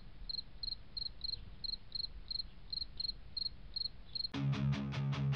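High chirping like a cricket's, about three chirps a second over a low hum. About four seconds in, music with guitar and bass starts with a run of regular, evenly spaced beats.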